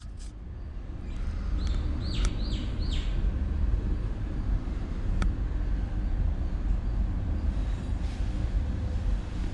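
Steady low rumble of a motorcycle on the move, mostly wind and road noise on the microphone. About two seconds in, a bird gives four quick descending calls.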